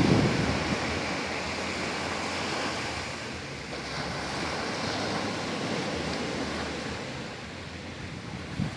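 Sea surf washing onto a beach as a steady rushing hiss, with wind buffeting the microphone as a low rumble right at the start that soon eases.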